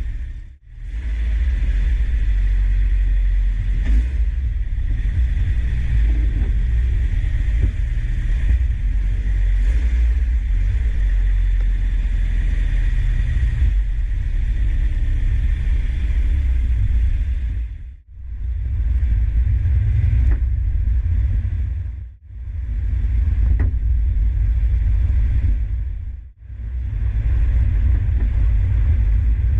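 Toyota 86 (ZN6) driving after a DIY fit of TEIN monotube coilovers: a steady heavy low rumble with a hiss above it, recorded to capture an abnormal suspension noise whose cause the owner does not know. The sound comes in several takes, with brief drops to silence about 18, 22 and 26 seconds in.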